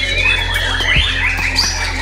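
White-rumped shamas singing in a loud, dense, overlapping chorus of quick whistled phrases and trills, with a steady low hum underneath.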